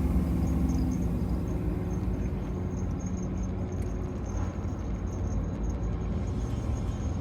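Low engine rumble with a pitched hum that fades away about four seconds in. A steady high insect trill runs underneath.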